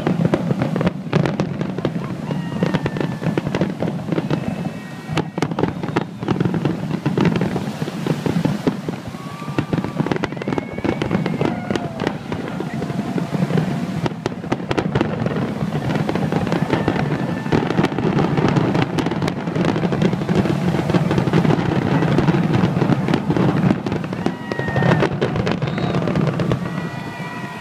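Aerial fireworks display: a dense barrage of bangs and crackles from shells bursting in quick succession, continuing for the whole stretch.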